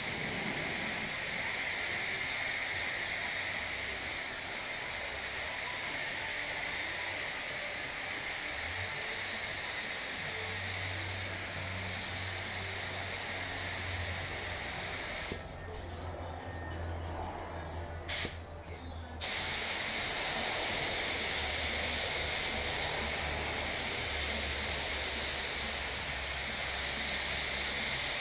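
Compressed-air spray gun hissing steadily as it sprays automotive paint, over a low hum. A little past the middle the hiss stops for about three seconds, with one short click, then starts again.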